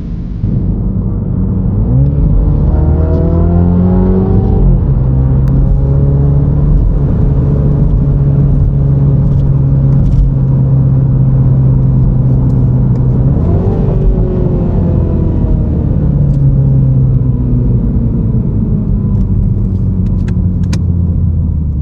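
MINI John Cooper Works F56's turbocharged 2.0-litre four-cylinder engine accelerating: the revs climb about two seconds in, ease off, and then the engine runs steadily. The revs rise again about halfway and then fall away slowly toward the end.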